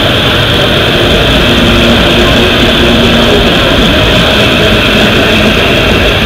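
Gas-turbine engines of a modified pulling tractor running steadily and loudly: a jet-like roar with a steady whistle over it.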